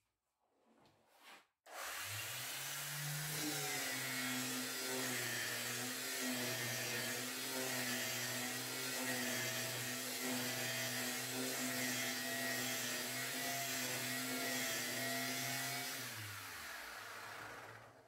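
Bosch GEX 150 AC random orbital sander switched on about two seconds in and running steadily with an even hum while sanding a wooden board. Near the end it runs down and stops.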